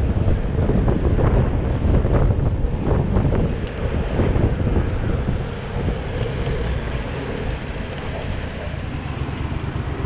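Wind rumbling on the microphone of a camera riding along on a bicycle, mixed with road and traffic noise. The rumble eases somewhat about halfway through.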